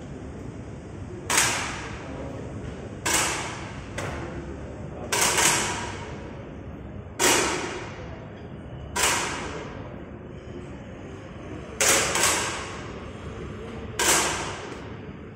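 Air rifle shots on an indoor range: about ten sharp cracks at uneven spacing, twice in quick pairs, each fading in a short echo from the hall.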